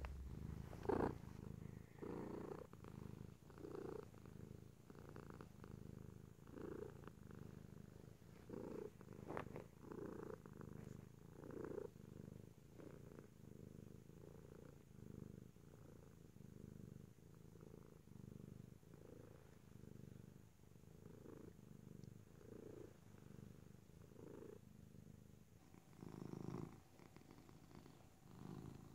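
Tabby cat purring while being stroked, a faint, steady purr that swells and fades about once a second with its breathing.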